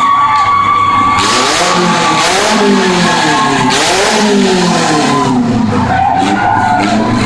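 Several demolition derby cars' engines revving up and down over and over, their pitches overlapping, with a rush of noise from the cars grinding and spinning their wheels.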